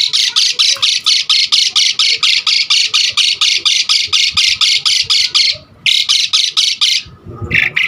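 Asian pied starling (jalak suren) giving a fast run of harsh, rasping notes, about five a second. There is a brief break near the middle, and the run stops about seven seconds in, followed by one short note.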